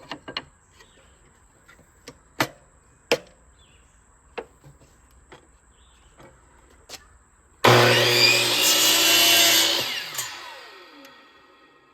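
Scattered sharp knocks and clicks, then about seven and a half seconds in a miter saw starts abruptly and cuts through a wooden segment for about two seconds. The motor then winds down with a falling whine.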